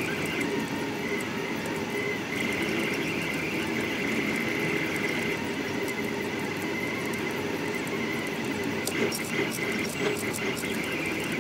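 Delta Rostock 3D printer printing at high speed: its stepper motors whine at shifting pitches as the effector darts back and forth over the part. A few clicks come near the end.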